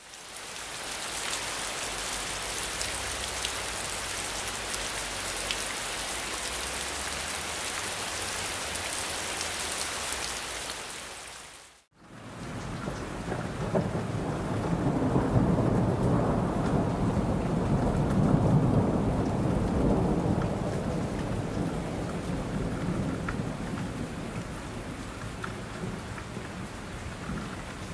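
Thunderstorm soundtrack: a steady hiss of heavy rain fades out about twelve seconds in. Then a long low rumble of thunder swells and slowly dies away.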